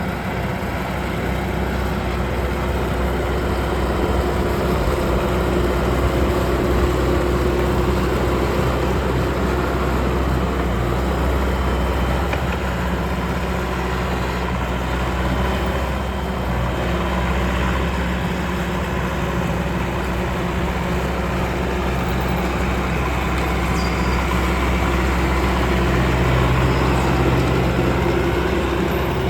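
Bobcat T590 compact track loader's diesel engine running steadily, its low note shifting a little a couple of times.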